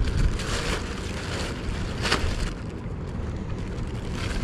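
Wind rumbling on the microphone over the wash of shallow sea water against rocks. A few short bursts of noise break through, the loudest about two seconds in.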